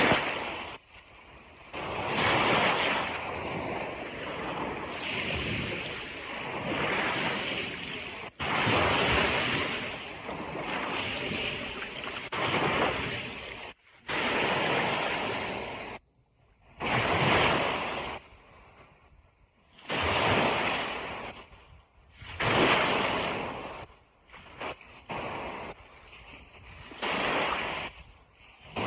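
Ocean surf washing onto a beach, swelling and fading in repeated rushes of a few seconds each. Several of the rushes cut off abruptly.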